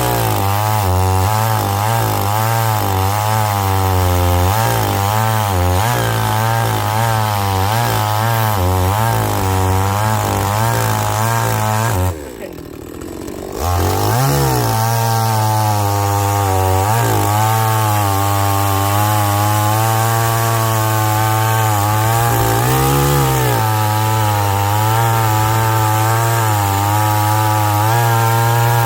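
Chainsaw at full throttle cutting through a log, its pitch wavering as the chain bites into the wood. About twelve seconds in it drops to idle for a moment, then revs back up and cuts on, with a brief dip in pitch later on.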